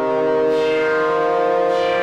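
Sequential Prophet-6 analogue polyphonic synthesizer playing a factory preset: sustained chords, with a new chord struck about half a second in and another near the end.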